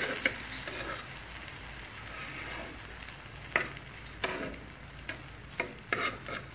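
Egg-and-milk-dipped bread slices sizzling in oil on a tawa, with a handful of sharp clicks and scrapes of a metal spatula against the pan, mostly in the second half.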